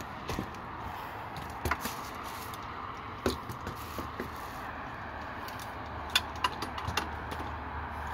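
Scattered clicks, knocks and rattles of a metal camera tripod being handled and its legs set up, over a steady background hiss.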